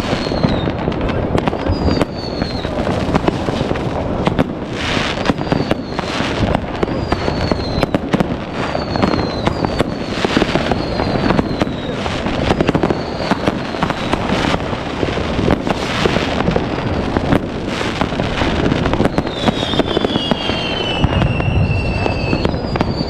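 Dense New Year's Eve fireworks: an unbroken run of bangs and crackling from firecrackers, rockets and fireworks batteries, going off many at once. Short falling whistles recur about once a second, and a longer falling whistle sounds near the end.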